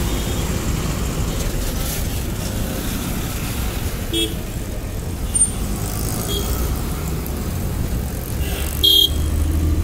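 Steady city road traffic rumble, with short vehicle horn toots about four seconds in and again near the end.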